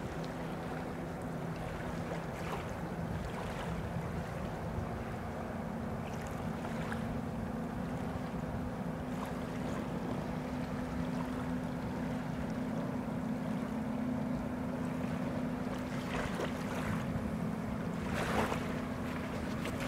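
Distant ferry approaching across the water, its engines giving a steady low hum, with small waves lapping at the shore now and then.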